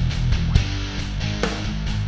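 Background rock music with guitar and a beat of sharp drum-like hits.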